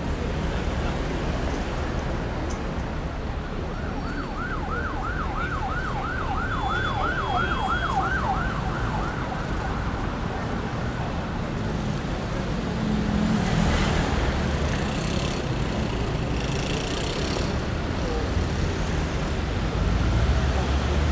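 Busy city street traffic rumbling steadily, with an emergency-vehicle siren yelping rapidly up and down for several seconds about four seconds in. Two short bursts of hiss follow in the second half.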